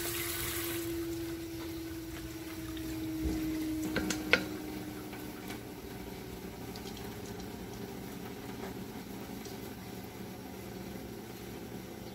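Kitchen tap running onto miki noodles being rinsed in a plastic colander in a steel sink, shut off about a second in. After it comes a faint hum that slowly sinks in pitch and fades, with two sharp clicks around four seconds in.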